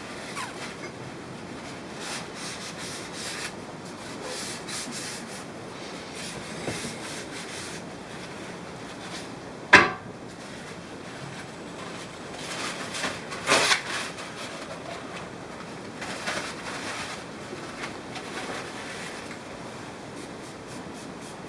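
Irregular rubbing and scraping strokes on aquarium glass, with two short sharp sounds, one about ten seconds in and one near fourteen seconds.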